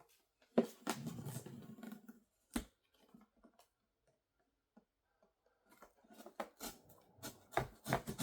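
Cardboard coffee-maker box being opened by hand: scattered clicks, scrapes and rustles of cardboard and packaging, a single knock, a quiet pause of a few seconds in the middle, then a quick run of scraping and tapping near the end.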